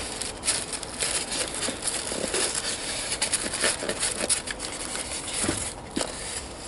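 Close-up handling of model-train packaging: irregular rustling and crinkling with many small clicks and light knocks.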